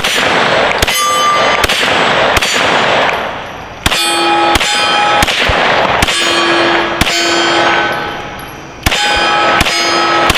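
About a dozen 9mm shots from a Glock pistol with a 16-inch barrel, fired at a steady pace with two short pauses. Steel plate targets clang and ring at several different pitches after the hits.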